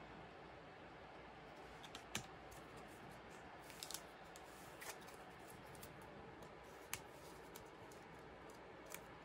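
A handful of sharp, light clicks and ticks from the plastic sleeves and pages of a ring-binder photocard album being handled and a page turned, spaced a second or more apart over a faint steady hiss.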